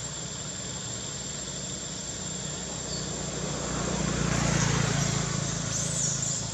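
A steady low engine rumble that grows a little louder about four seconds in, then eases off.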